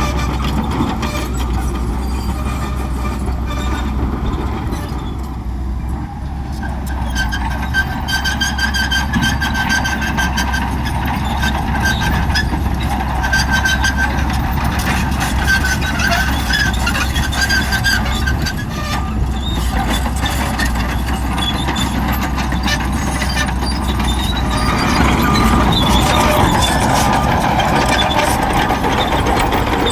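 Shantui crawler bulldozer's diesel engine running steadily under load, with its steel tracks clanking and squealing on and off. It gets louder near the end.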